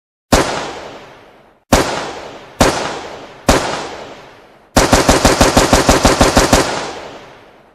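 AK-47 rifle gunfire sound effect: four single shots, each ringing out with a long echoing tail, then a fully automatic burst of about ten rounds a second lasting nearly two seconds, its echo fading near the end.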